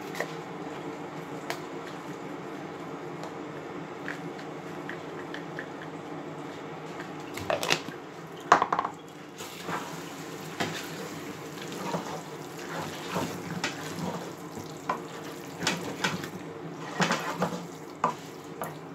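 Wooden spoon stirring jollof rice in a stainless steel pot, scraping and knocking against the sides, over a steady low hum. The stirring grows louder about halfway through.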